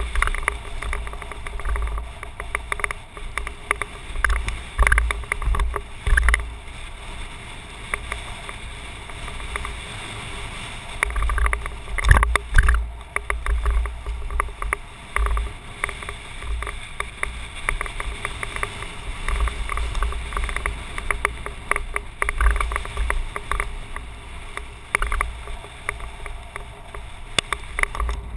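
Mountain bike ridden fast down a rough dirt and gravel trail, heard from a camera on the rider: wind rumbling on the microphone, with irregular rattles and knocks from the bike and tyres over bumps, a dense cluster of knocks about twelve seconds in.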